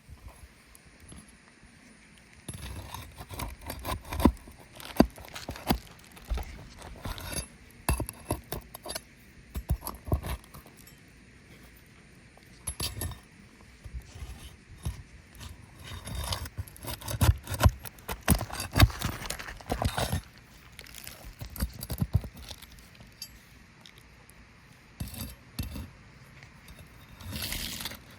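Irregular clicks, clinks and scrapes of small hard objects being handled, coming in clusters with short quiet gaps.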